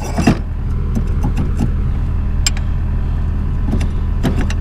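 Skid steer engine idling steadily, with a few metal clinks as a hitch ball mount is worked into a trailer-hitch receiver.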